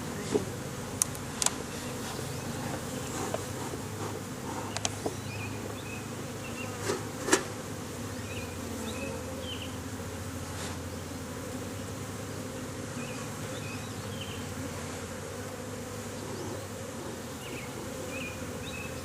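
Honeybees buzzing steadily around an opened hive, with a few sharp clicks and knocks in the first half, the loudest about seven seconds in.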